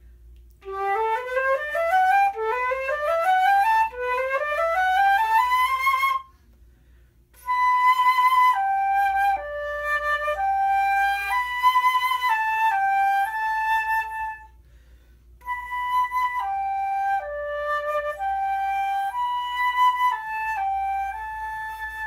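Haynes 14-karat gold flute with a 14-karat gold P-cut headjoint played: three quick rising runs, then after a short pause a slow melody of held notes, played twice with a brief break between.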